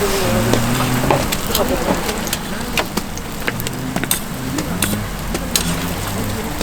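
Hotteok frying on an oiled street-stall griddle: a steady sizzle, with irregular sharp clicks and scrapes of metal tools against the griddle and faint voices in the background.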